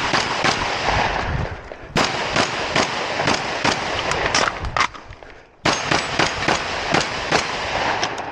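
Shotgun fired in rapid strings of shots on a practical shooting stage. The firing breaks briefly about two seconds in and again for about half a second near five seconds, then resumes.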